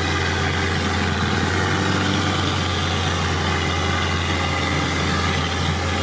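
UAZ off-roader's engine running steadily under light throttle, heard from inside the open cab while the vehicle drives slowly over a rutted dirt track.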